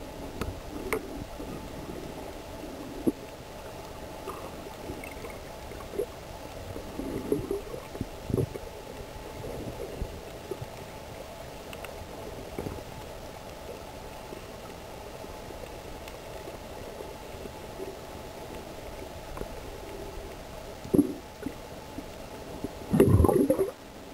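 Muffled underwater water noise picked up by a snorkeler's camera: a steady low hum with scattered gurgles and knocks, and a louder gurgling burst near the end.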